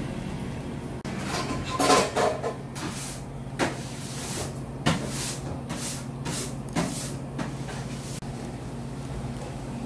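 Irregular knocks and clattering with short swishing rustles, typical of containers, lids and bags being handled at a food stall, over a steady low hum.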